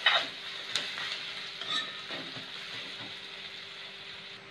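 Sliced onions sizzling in oil in a kadai on a high flame, with a steel spatula scraping the pan as it stirs them: two sharp strokes in the first second, then a few fainter ones over the steady sizzle. The onions are lightly browned and turning translucent.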